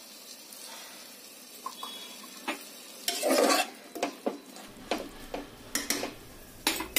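Vegetables sizzling faintly in oil and water in an aluminium pressure cooker, then from about three seconds in a metal ladle stirring them, scraping and knocking against the pot many times.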